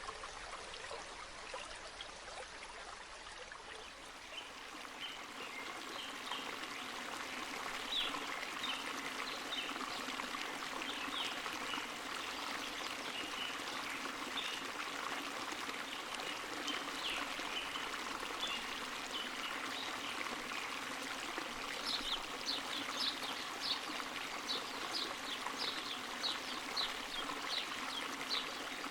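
Water from a small spring trickling and splashing in a steady stream, with many little drip and splash sounds on top. It grows a little louder about four seconds in, and the splashing becomes busier in the second half.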